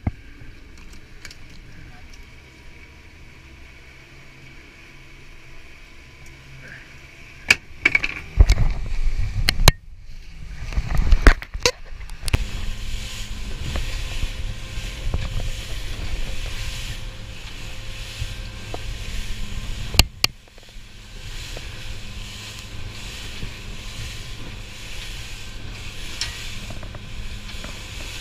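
Small aluminium fishing boat running at speed: a steady engine hum under wind and spray noise, starting about 12 seconds in. Before that there is a low, quiet background, then a run of loud knocks and bumps.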